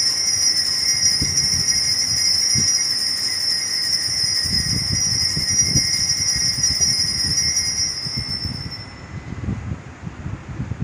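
Altar bells ringing steadily at the elevation of the host in a high, metallic peal, with soft low knocks underneath. The ringing fades out about nine seconds in, as the host is lowered.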